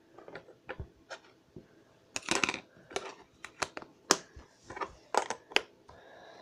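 Plastic slime tubs handled on a table: slime pressed into a clear round tub, its lid fitted on, and the next container picked up, giving a string of sharp clicks and knocks. A short scraping rustle comes a little over two seconds in.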